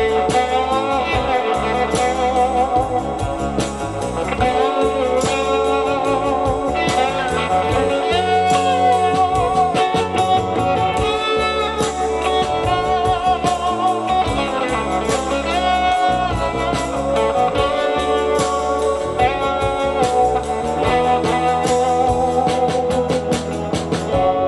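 Guitar-led music in a bluesy style, played through a pair of Pioneer CS-501 three-way loudspeakers as a listening test, with bending, wavering guitar notes over a steady bass.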